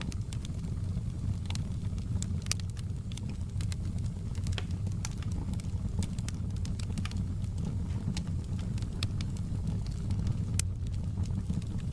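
Wood fire crackling in a fireplace: a steady low rumble of the flames with irregular sharp pops and snaps.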